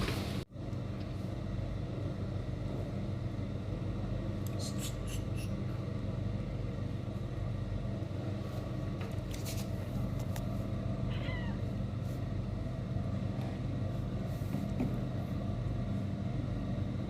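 A steady droning hum runs throughout. A cat gives a short, soft meow about eleven seconds in, and a few light clicks sound along the way.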